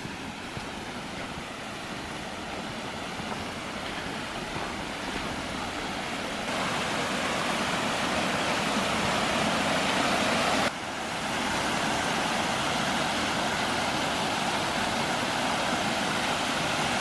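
Water rushing steadily through and over a freshly built beaver dam of sticks and mud, stepping louder about six seconds in.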